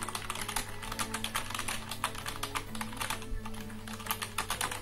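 Fast typing on a Logitech K120 membrane keyboard: a quick, dense run of soft key clicks, with a short lull a little past three seconds in. The keys need only a light press.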